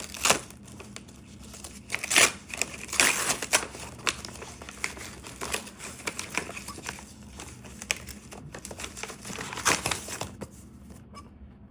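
Hands ripping open a mailing package and crinkling its wrapping: irregular rustling with sharper rips, loudest just after the start, about two to three seconds in, and near the end.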